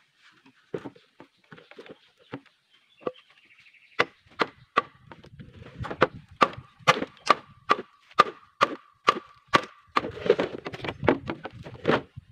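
Machete chopping green bamboo poles: a few light knocks, then from about four seconds in a run of about a dozen sharp strikes at roughly two a second, with a faint ringing tone under them. Near the end the strikes give way to denser scraping and knocking as the pole is handled.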